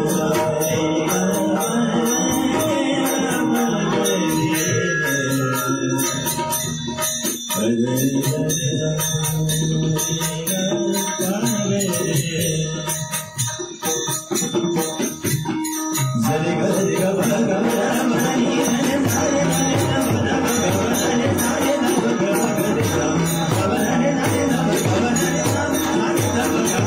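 Marathi devotional bhajan: a singer's voice carrying a bending melody over jingling metal percussion. The accompaniment thins out in the middle, then an even, driving beat comes back in for the last third.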